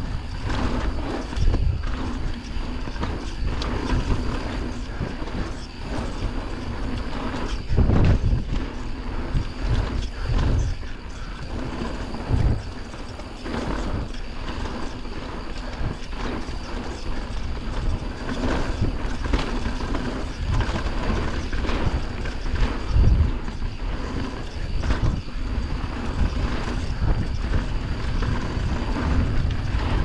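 Mountain bike riding fast down a dirt trail: tyres rolling over dirt and roots, with the bike's frame and chain clattering at each bump, over a steady low rumble. The clattering is loudest about 8 seconds in and again near 23 seconds.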